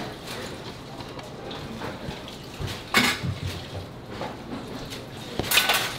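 Metal kitchenware clattering: a sharp clink about halfway through and a longer, ringing clatter near the end.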